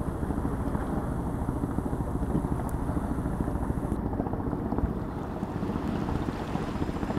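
Boat engine running steadily, with wind noise on the microphone.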